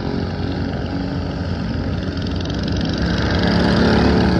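Small-engine racing lawn mowers running at race speed, growing louder about three seconds in.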